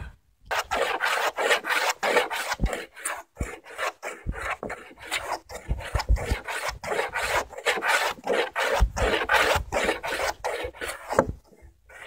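Block plane shaving across the grain of a white pine timber tenon in quick repeated strokes, paring about a sixteenth of an inch down to the layout line. The strokes stop shortly before the end.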